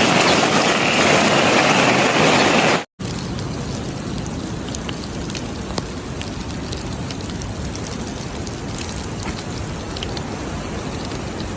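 Rain falling heavily. About three seconds in, a sudden cut leads to quieter, steady rain with scattered drop ticks.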